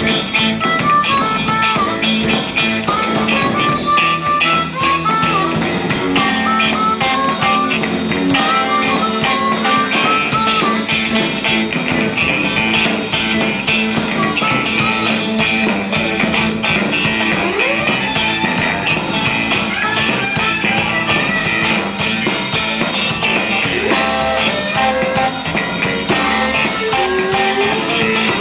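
Live blues band playing an instrumental break: electric lead guitar playing a solo over drum kit and rhythm backing.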